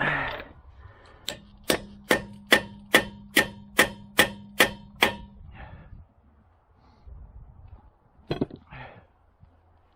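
A hammer striking metal about ten times in a steady rhythm, a little over two blows a second, each blow ringing; one more blow near the end. It comes as a 19 mm socket is being worked onto a wheel lug that needs a 20.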